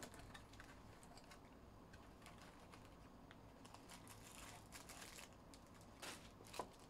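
Faint light taps and rustles of a 2021 Bowman's Best cardboard box being opened and its foil card packs pulled out, with a slightly louder rustle about six seconds in.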